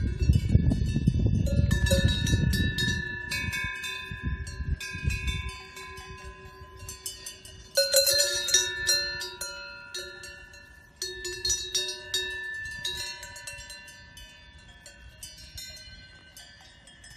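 Cowbells on grazing cattle clanking irregularly, several bells of different pitch ringing on after each stroke, with louder clanks about eight and eleven seconds in and the ringing dying away toward the end. A low rumble, like wind on the microphone, lies under the first five seconds.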